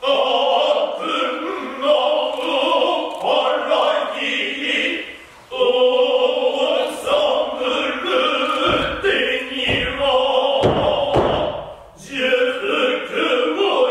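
Noh chorus of men chanting utai in unison, pausing briefly about five and a half seconds in and again near the end. A run of low thuds sounds under the chant about two-thirds of the way through.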